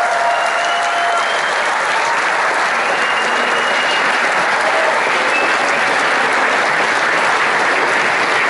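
A crowd applauding: dense, steady clapping with a few cheers near the start.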